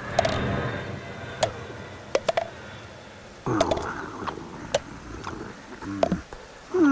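Cartoon sound effects: a string of short clicks and pops, some with a brief ping, over two stretches of soft rustling noise, one at the start and one about three and a half seconds in.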